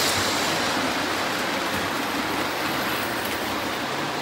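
O gauge model diesel train running on three-rail track: a steady rolling rumble of wheels and electric motor that grows slightly fainter toward the end.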